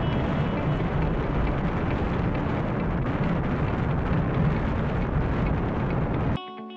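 Steady low wind rumble and road noise on a camera microphone mounted on a kayak being towed on a trailer at road speed. It cuts off suddenly near the end, and soft music starts.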